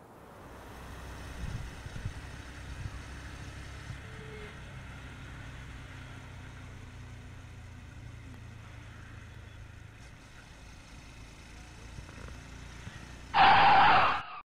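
Motorcycle engine running steadily while riding, with a few bumps early on. Near the end comes a much louder, harsh burst of about a second that cuts off suddenly.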